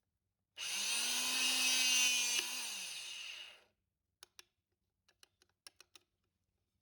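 A small handheld power tool's motor runs for about three seconds: it comes up to speed almost at once, holds a steady whine, then winds down with a falling pitch once released. Several light clicks follow as the tool is handled.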